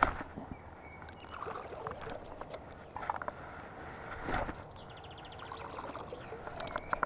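Handfuls of canned sweet corn kernels thrown into a still lake, landing on the water as several light scattered splashes a second or so apart.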